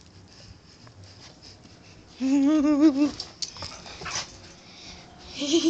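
Dog giving one long whining call with a wavering pitch about two seconds in, lasting about a second, followed by a few clicks and scuffs and the start of another short whine at the very end.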